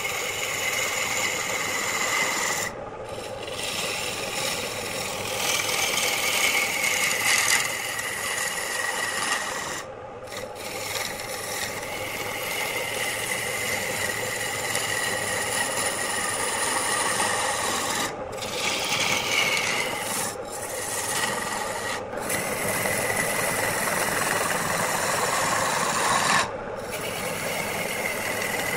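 A hand-held turning tool cutting into a spinning wooden form on a wood lathe: a steady scraping, rasping cut with a whistling tone that dips in pitch in places. The cut breaks off briefly several times.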